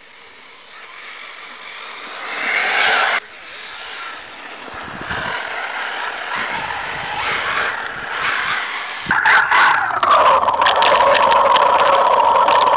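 Thunder Tiger RC buggy driving fast on dirt. Its motor swells as it passes and cuts off abruptly about three seconds in. From about nine seconds a loud, steady, high-pitched motor note is heard close up, with the tyres scrabbling on loose dirt.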